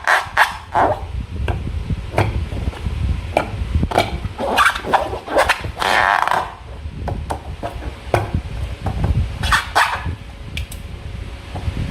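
Slime being squeezed and worked by hand: irregular wet squelches and sharp sticky clicks and pops.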